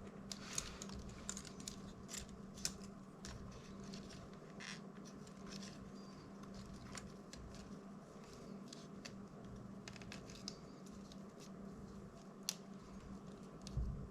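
Small tools clicking and scraping against the DJI Mini 2's plastic arm and frame while the hot-glued antenna cable is worked loose, in scattered light ticks with a few sharper clicks. A faint steady hum runs underneath.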